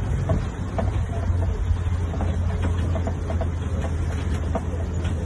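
Safari tour truck driving over a dirt track: a steady low engine rumble with scattered rattles and knocks from the rough ride.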